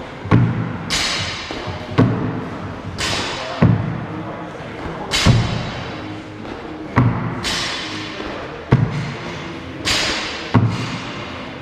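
Repeated box jumps: feet landing heavily on a plyo box, a thud about every one and a half to two seconds, with background music.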